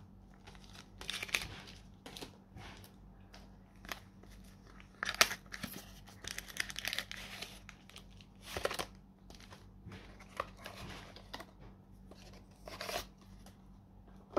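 Foil trading-card booster packs crinkling and a cardboard deck box being opened and its cards slid out: irregular rustles and scrapes, with a few louder crinkles.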